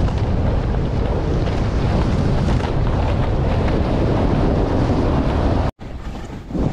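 Wind buffeting an action camera's microphone during a fast ride down powder snow: a loud, steady rumbling roar. It cuts out abruptly near the end, then comes back quieter.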